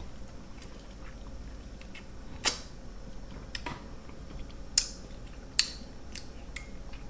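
A person chewing and smacking on sauce-covered boiled seafood, with a few sharp wet clicks, four standing out about a second apart.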